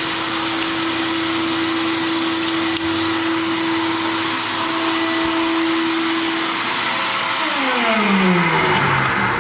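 Media blasting cabinet in use: a loud, steady hiss of compressed air and abrasive blasting. Under it a steady hum glides down in pitch near the end.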